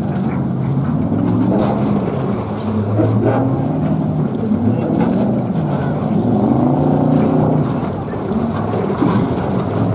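Engine of a Baby Bootlegger racing boat, a 7.4-litre, 330 hp motor, running at speed across the water. Its pitch dips and rises several times as the boat passes and turns.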